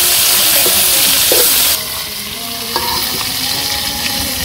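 Pieces of taki fish (spotted snakehead), coated in turmeric, chili and salt, sizzling in hot oil in a wok while a metal spatula stirs and turns them, with a few scrapes and clinks of the spatula on the pan. The sizzle drops suddenly to a softer hiss about two seconds in.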